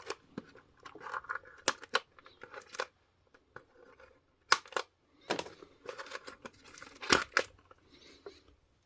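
Action-figure packaging being cut open: irregular sharp snips and clicks, with rustling and crinkling of the cardboard and plastic between them.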